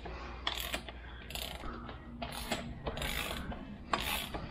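Hand socket ratchet working the 19 mm front axle of a Suzuki DR650 loose, its pawl clicking in short bursts with each back-stroke, roughly once a second.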